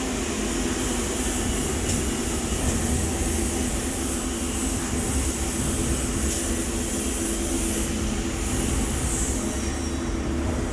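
Steady mechanical hum and hiss with a few constant low tones, holding level throughout.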